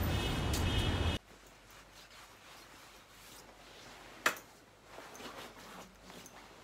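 Street traffic noise with wind on the microphone that cuts off abruptly about a second in, giving way to a quiet room. Later comes a single sharp click, then soft rustling of clothing as a jacket is handled.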